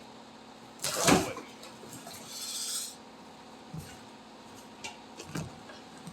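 A sharp clunk about a second in, then a short rustle and a few light knocks as parts and rubber carpet are handled and pulled out of the car.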